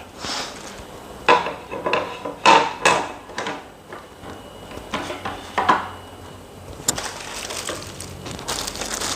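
Teak wood table-top panels of a Naturehike IGT camp table being set onto its stainless steel frame: several separate sharp wooden knocks and clatters. Plastic packaging rustles near the end.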